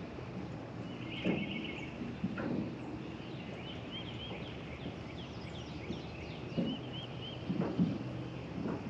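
Songbirds singing: a short buzzy trill, then a run of quick rising whistled notes. Under them are a few soft knocks and a low steady hum.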